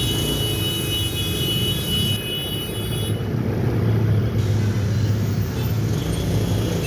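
Congested road traffic: the engines of cars and motorcycles queued at a railway level crossing make a continuous low rumble that swells slightly in the middle. A faint, steady high tone in the first half stops abruptly about three seconds in.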